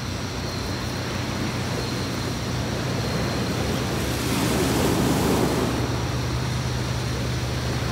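Sea waves washing onto a beach, swelling about four seconds in, over a steady low hum.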